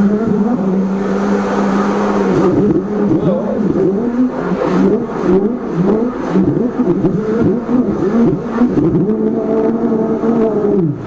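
High-pressure drain jetter's motor and pump running while the jetting hose works a blocked rainwater downpipe. It is a steady drone that wavers up and down in pitch through the middle, then steadies and cuts off suddenly near the end.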